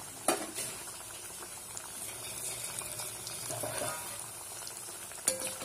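Mathri dough discs deep-frying in hot oil on a low flame: a steady, even bubbling sizzle of the oil. A sharp click comes just after the start, and a louder one near the end.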